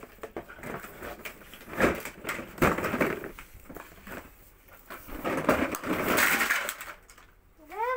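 A large cardboard toy box being handled, tipped and slid, giving several bursts of rustling and scraping. A child's short rising vocal sound comes near the end.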